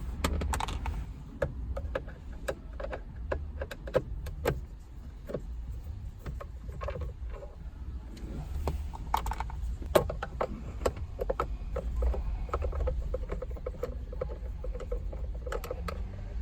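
Phillips screwdriver backing screws out of the plastic steering column cover by hand, with irregular clicks, ticks and small rattles throughout, over a low rumble.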